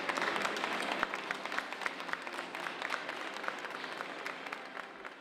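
A crowd applauding, dense clapping that fades out toward the end.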